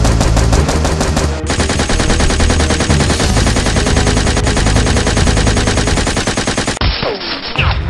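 Rapid automatic gunfire, a steady stream of evenly spaced shots that grows denser about a second and a half in and stops about seven seconds in. It is a machine-gun sound effect laid over Nerf blasters being fired.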